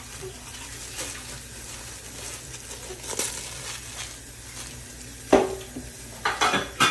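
Knocks and clinks on a metal cooking pot over a steady low hum: a few light taps, a sharp knock about five seconds in that rings briefly, then a quick cluster of knocks near the end.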